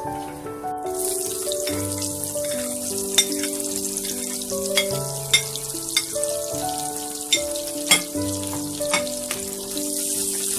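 Sliced onions frying in hot oil in a pan: a steady sizzle with sharp pops and crackles, starting about a second in. Instrumental background music with a slow melody plays throughout.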